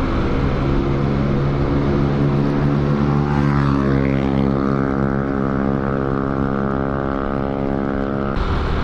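Motorbike engine running at a steady cruising pace, a steady hum with wind rumbling over the action camera's microphone. The sound cuts off abruptly near the end.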